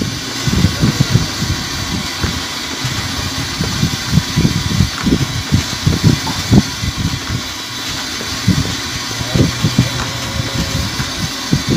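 Hands tossing and pressing raw chicken pieces in dry flour in a plastic bowl, making soft irregular thuds and rustles: the dry dredge that builds a flaky, crispy coating. A steady hum runs underneath.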